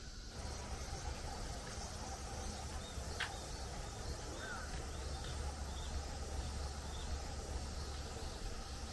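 Outdoor park ambience: insects droning steadily high up over a low rumble, with one short sharp chirp about three seconds in.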